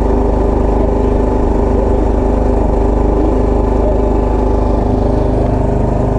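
Engine aboard a small fishing boat running with a steady, even drone; its note shifts slightly about five seconds in.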